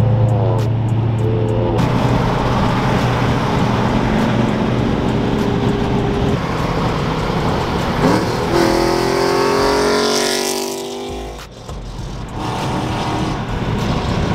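Supercharged V8 of a Dodge Challenger Hellcat, heard from inside the cabin at freeway speed: a steady drone, then a hard rev under acceleration from about eight seconds in, pitch climbing for about three seconds. The sound drops away briefly, then picks up again near the end.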